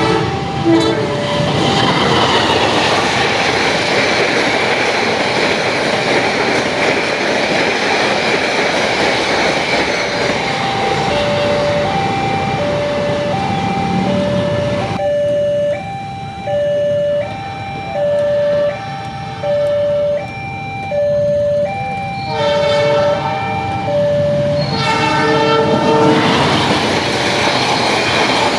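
Train horn sounding as a train runs through a railway level crossing, its wheels and cars running loudly past for about fifteen seconds. The crossing's warning alarm repeats two alternating tones through the middle. The horn sounds twice more near the end as running noise builds again.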